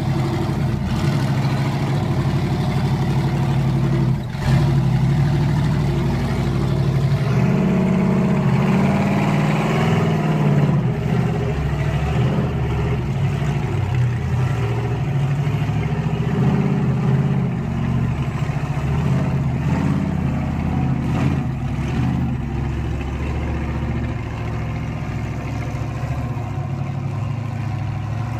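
Modified Jeep YJ race car's engine working hard on a steep rock climb, the throttle rising and falling in repeated bursts of revving. It grows slightly fainter near the end as the car moves away.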